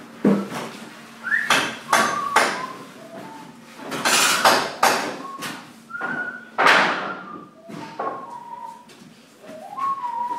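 Wooden floorboards knocking and scraping as they are handled around a table saw, with no saw running. Between the knocks someone whistles short notes of a tune.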